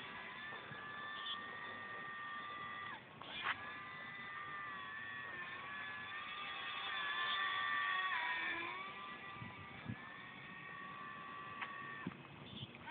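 RC model airplane's motor whining in flight, its pitch dropping sharply about three seconds in and again near nine seconds, loudest around seven to eight seconds. A few short clicks come near the middle and end.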